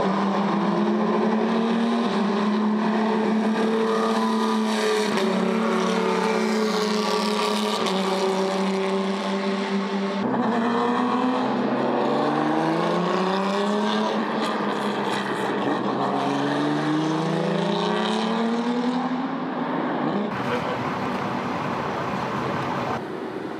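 A motor vehicle's engine running steadily, then revving up in several rising sweeps that break off and climb again.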